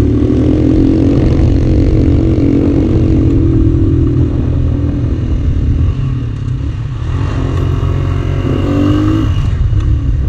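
Honda TMX 155's single-cylinder four-stroke engine running under way, heard from the rider's seat with heavy wind rushing over the microphone. The engine note rises as the bike accelerates in the second half.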